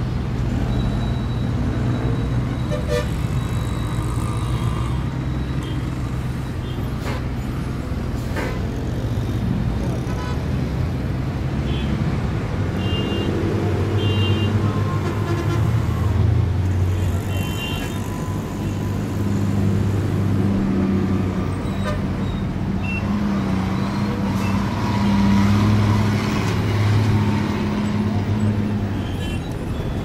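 Busy street traffic: a continuous rumble of car and heavier vehicle engines passing and idling, swelling and fading as vehicles move, with a few short horn toots and scattered knocks.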